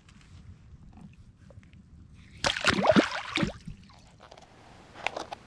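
A channel catfish splashing into the water as it is released, one loud splash about a second long near the middle, with a few faint clicks before and after.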